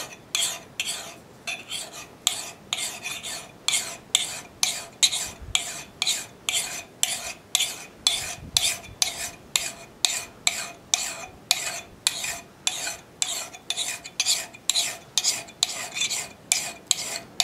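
A flat file rasping across the steel bit of a Council Tool boys axe held in a vise, in even back-and-forth strokes about two and a half a second, each with a faint metallic ring. The file is taking the machining marks out of the factory hardware-store grind.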